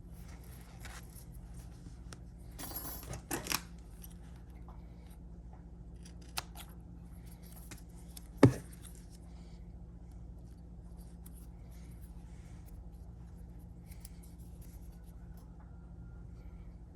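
Handling noises from repair work: a short run of scrapes and clicks about three seconds in, and one sharp knock a little past the middle, over a steady low hum.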